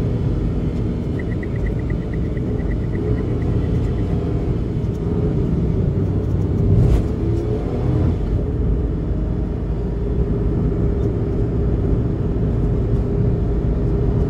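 Steady low road and engine rumble heard from inside a car's cabin while driving at expressway speed. About a second in, a rapid high electronic beeping runs for about three seconds, and near the middle there is a single sharp knock.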